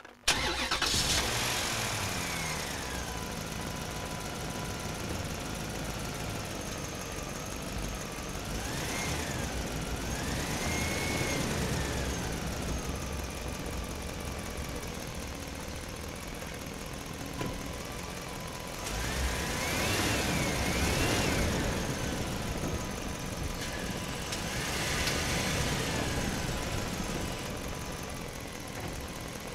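Huina radio-controlled excavator working its arm and bucket: a steady mechanical drone, with motor whines that rise and fall in pitch several times as the boom moves.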